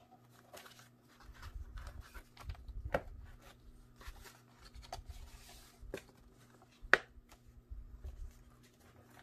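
Paper booklets and a card envelope being handled and shuffled in a cardboard box with foam packing: soft rustling and sliding with a few sharp taps, the loudest about seven seconds in.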